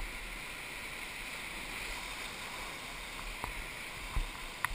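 Whitewater rapids rushing steadily around an inflatable raft, with a few light knocks in the second half.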